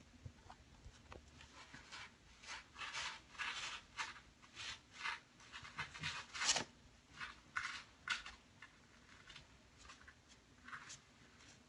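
Kitten scratching and digging in cat litter, covering up after using the litter box: a run of short, irregular, faint scratchy rustles, the loudest about six and a half seconds in.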